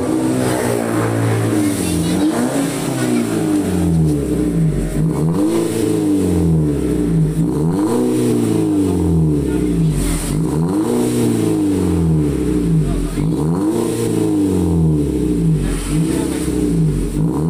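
Toyota Calya's engine revved in repeated blips through a straight-through racing exhaust, the revs rising and falling a little over every second and a half. The stock muffler has been removed and replaced with straight pipe to a Zigen rear muffler with twin tips.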